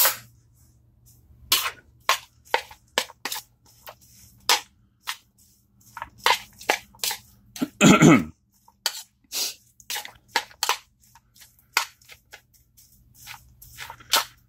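Metal spoon clinking and scraping against a ceramic bowl in quick, irregular strikes while stirring chopped pico de gallo. A short vocal sound about eight seconds in is the loudest moment, over a faint steady low hum.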